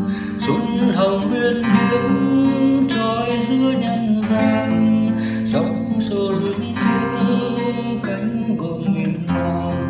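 Music led by a plucked acoustic guitar, with sustained pitched notes.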